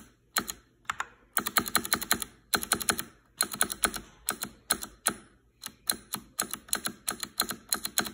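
Typing on a mechanical keyboard with clicky Otemu blue switches whose click leaf has been trimmed with scissors, meant to make them quieter and more consistent, like Kailh Box Whites. Rapid flurries of sharp key clicks come in short runs with brief pauses between them.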